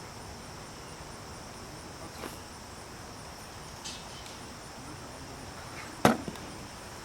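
Insects chirring steadily in a high, even drone, with one sharp knock about six seconds in.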